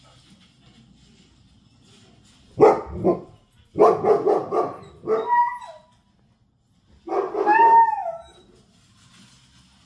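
Pet dogs barking loudly at a Kangal's barking from the TV: two barks, then a quick run of barks with a yelping tail, and after a short pause one longer howling bark that rises and falls in pitch.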